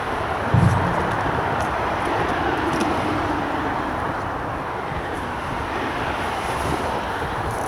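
Steady roar of road traffic on a nearby dual-carriageway bridge, with a short low thump about half a second in.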